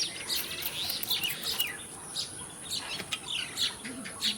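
Small birds chirping repeatedly in quick short calls, with a few sharp faint clicks among them.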